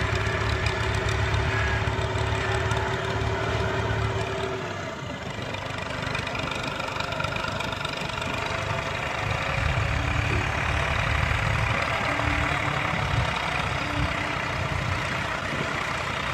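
Modified Massey Ferguson 240 tractor's three-cylinder diesel engine running steadily; its note shifts about four and a half seconds in.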